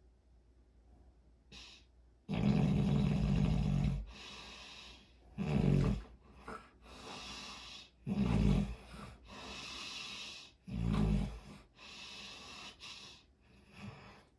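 A person snoring in slow, even breaths: after about two seconds of quiet, four loud snores come roughly three seconds apart, each followed by a softer breathy exhale, with a fainter one near the end.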